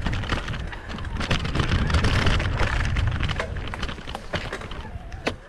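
Electric bike ridden along a dirt trail through grass and brush: tyres rolling over the rough ground, with many sharp crackles of twigs and stems brushing and snapping against the bike, over a low wind rumble on the microphone. The noise eases a little near the end, with one sharp click.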